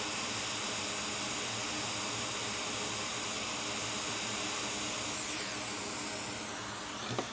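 Hot air rework station blowing a steady hiss of hot air over a BGA chip, reflowing its solder. A short click comes just before the end, and the hiss drops a little after it.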